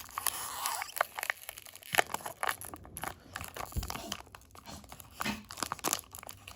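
Wax-paper wrapper of a 1992 Topps hockey card pack crinkling and tearing as it is opened by hand, an irregular run of sharp crackles.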